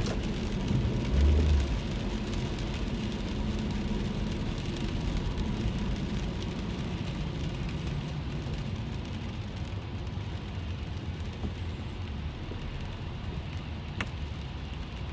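Rain falling on a car, heard from inside the cabin while it drives, over a steady low rumble from the car and road. There is a low thud about a second in and a single sharp click near the end.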